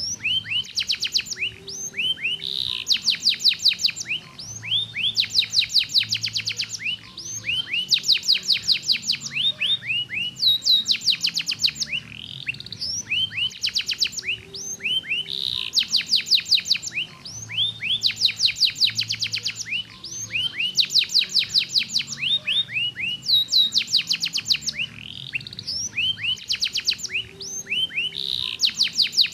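Domestic canary singing continuously: fast trills of rapidly repeated notes, some sliding down in pitch, in phrases that follow one another with only brief breaks.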